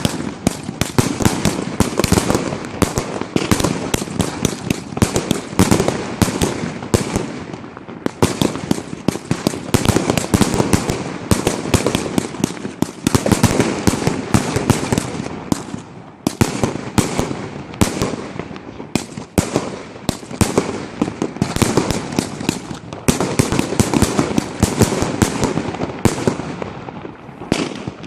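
Battery fireworks (cakes) firing in a continuous rapid barrage of bangs and crackles, dying away at the very end.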